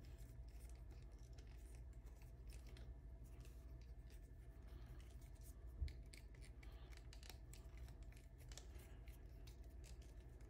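Faint handling noise as a camera bracket is screwed onto a tripod's mounting screw: light scratches and small clicks, with one soft knock about six seconds in, over a low steady hum.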